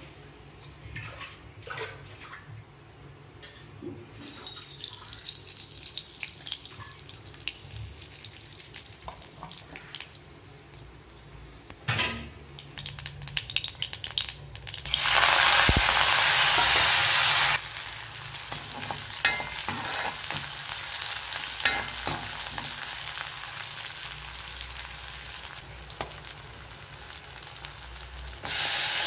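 Hot oil sizzling and crackling in a steel kadai, with mustard seeds popping and then shallots, garlic, dried red chillies and curry leaves frying. A loud rush of sizzling lasts a couple of seconds about halfway through, after which a steady frying hiss carries on and grows louder again near the end.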